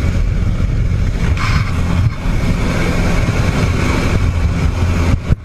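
Light aircraft engine running with rushing wind through the open jump door: a loud, steady low drone under a hiss of slipstream, with a stronger gust of wind noise about a second and a half in.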